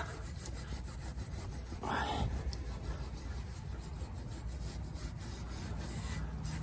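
Faint rubbing and scraping of a hand tool on the rear brake parts, as anti-seize lubricant is worked on, with one louder scrape about two seconds in.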